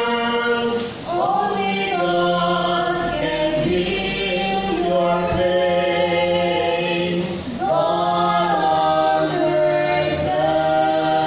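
A trio of mixed voices, two women and a man, singing a slow hymn together into microphones, holding long notes with brief breaths between phrases.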